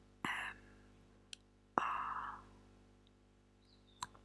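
Close-miked whispering: two short breathy whispered sounds, each starting with a mouth click, the second louder, with a few faint mouth clicks between and near the end. A faint steady hum lies under it all.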